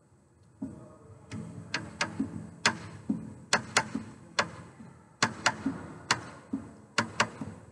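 Wooden-bodied resonator guitar picked in sparse single notes, starting about half a second in. Each note has a sharp, clicky attack and a short low ring, coming unevenly at roughly two a second.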